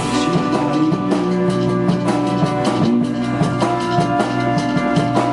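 Band music between sung lines: drum kit, electric guitar, bass and keyboard playing an instrumental passage with a steady beat.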